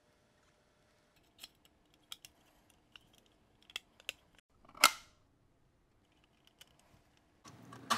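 Light plastic clicks and taps from a floppy drive and its plastic front bezel being handled and fitted together, with one louder, sharper click just before five seconds in.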